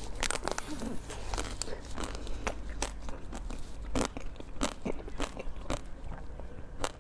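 Close-miked biting and chewing of a frozen chocolate-coated bar, with irregular crisp cracks and crunches as the hard frozen coating breaks between the teeth.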